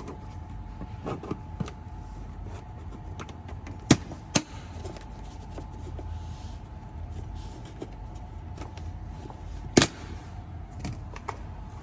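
Plastic pry tool working at the edge of a Tesla Model 3/Y dashboard wood trim panel: scattered small clicks and scrapes, with two sharp snaps about four seconds in and another near ten seconds.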